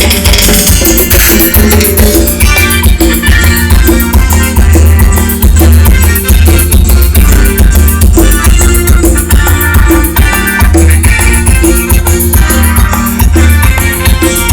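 Live Latin dance band playing an instrumental passage without vocals: a heavy bass and drums keep a steady beat, with a shaker rattling on top.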